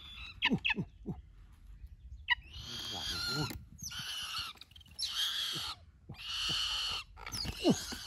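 A bird's harsh, hissing screeches: three of about a second each, with short falling squeals near the start and again near the end.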